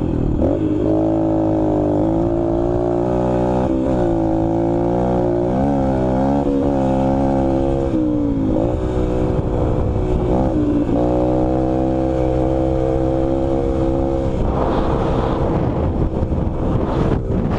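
Sport quad's engine running under way, its pitch rising and dropping several times as the rider works the throttle through the gears. Near the end the engine note softens and wind noise on the microphone takes over.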